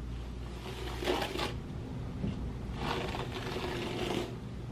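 Hair being brushed through a wig, two noisy strokes, one about a second in and a longer one from about three seconds in, over a steady low hum.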